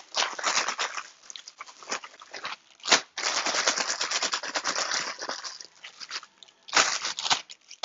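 Plastic zip-top bag crinkling and rustling as chicken wings coated in dry rub are handled inside it. There is a sharp louder crackle about three seconds in and another near the end.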